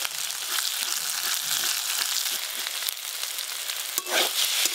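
Water spinach sizzling in mustard oil in a metal kadai, with a metal spatula scraping and stirring through the greens; a sharp click of the spatula about four seconds in.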